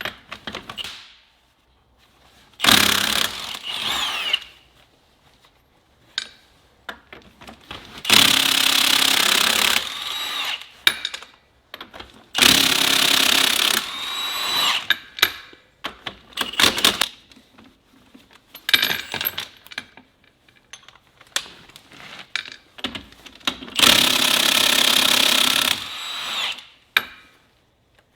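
Milwaukee Fuel cordless impact wrench with a 24 mm socket hammering wheel loader lug nuts loose, in several runs of about two seconds each. Short clicks and knocks come between the runs.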